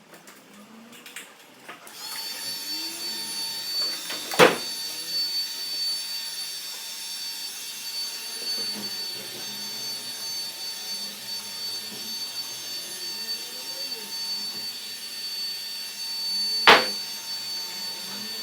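A small electric blower-type motor starts about two seconds in and runs steadily with a whining hiss. Two sharp clicks or taps stand out over it, one about four seconds in and one near the end.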